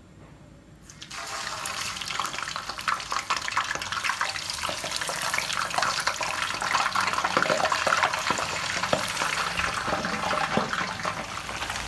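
Fish frying in hot oil in a wok. The sizzling starts suddenly about a second in as the fish go into the oil, then keeps up as a dense crackle with many small pops and spatters.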